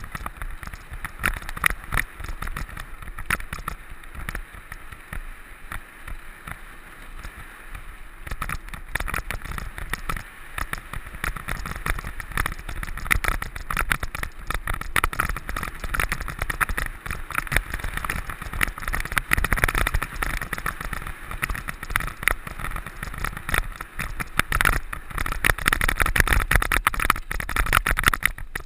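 Mountain bike ridden over rough, stony ground, heard close up: dense, irregular rattling and knocking from the bike over bumps, over a steady rush of tyre and wind noise.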